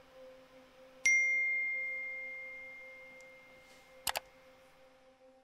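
A single bright computer message-notification ding that rings out and fades over about three seconds. Near the end come two quick clicks.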